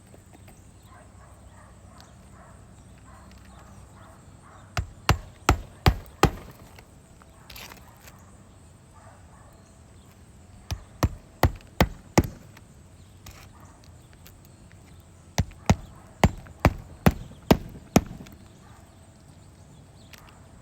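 A hammer striking in three runs of quick, evenly spaced blows, about three a second, four to seven blows in each run, as on roof work.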